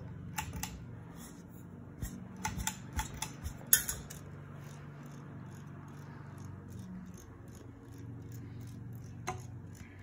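Harbor Breeze Builder's Best ceiling fan motor running on low speed with a steady low hum, turning slowly, which the owner takes for a sign of a bad capacitor. Scattered light clicks in the first four seconds and once near the end.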